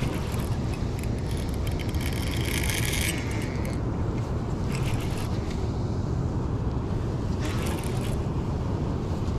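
Baitcasting reel's drag buzzing in two short runs, about two seconds in and again near the end, as a big channel catfish pulls line off against it. A steady low rumble runs underneath.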